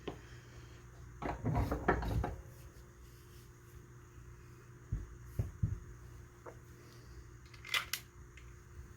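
Workbench handling noises as rifle parts and tools are picked up and set in place: a brief scrape about a second in, a few soft knocks around the middle, and a sharp click near the end.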